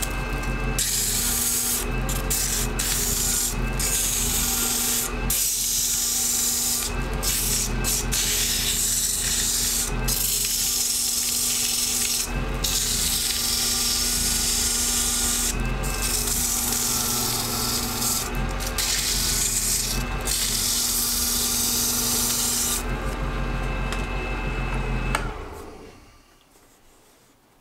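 Sandpaper held against an acrylic duck call blank spinning on a small wood lathe: a steady hiss over the lathe motor's hum, broken several times for a moment as the paper lifts off. Near the end the sanding stops and the lathe's sound dies away over a couple of seconds.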